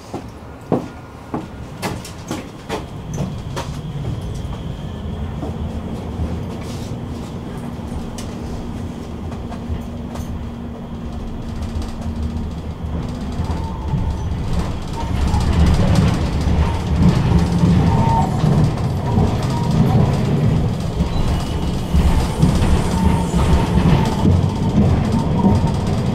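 Tram running along the rails with a constant low rumble from the wheels and sharp clicks in the first few seconds. It grows louder a little past halfway.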